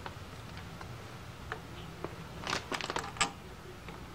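Light clicks and small taps of metal parts being handled as the water pump cap is fitted and its screw started by hand on a motorcycle engine. A quick cluster of clicks comes about two and a half to three seconds in.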